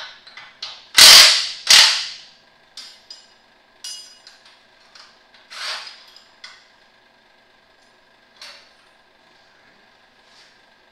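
Metal tools and parts clanking in a Mack Cruise Liner's engine bay during teardown: two loud bangs about a second in, then a scatter of lighter knocks and clinks, a few of them ringing.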